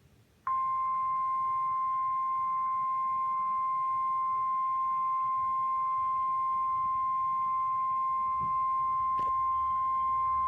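NOAA Weather Radio 1050 Hz warning alarm tone from a weather radio's speaker. It is one steady high tone starting about half a second in, holding for about ten seconds and cutting off sharply. It signals that a warning message follows.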